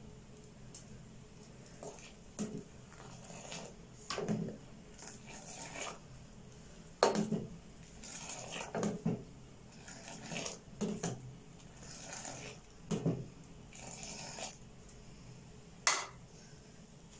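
Steel ladle scooping Kashmiri pink tea from a steel pan and pouring it back from a height to aerate it: repeated irregular metal clinks of ladle on pan with short splashes of the pouring tea, the sharpest clinks about seven seconds in and near the end.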